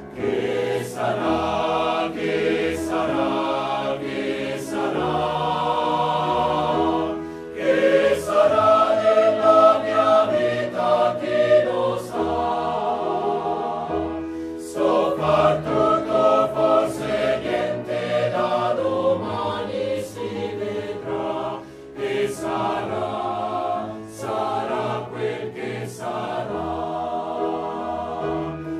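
Mixed choir of men's and women's voices singing a song together in harmony, a virtual choir built from voices recorded separately at home.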